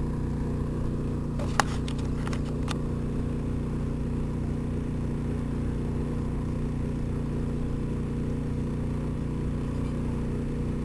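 Steady low mechanical drone, like a running engine, with a few sharp clicks about one and a half to two and a half seconds in.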